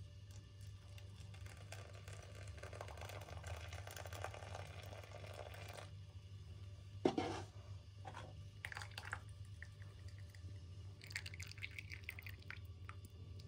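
Hot milk tea being poured into cups: a faint stream of liquid for several seconds, a sharp clink about seven seconds in with a few lighter knocks after it, then a shorter pour near the end.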